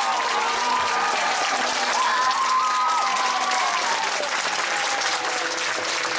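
Audience applauding steadily, with a few voices calling out over the clapping during the first few seconds.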